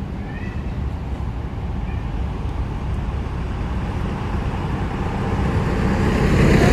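Steady low outdoor rumble that grows gradually louder toward the end, with two faint short chirps about half a second in.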